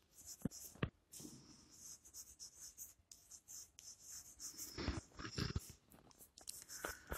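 Chalk writing on a blackboard: faint scratching strokes with a few sharper taps of the chalk, busiest about five seconds in.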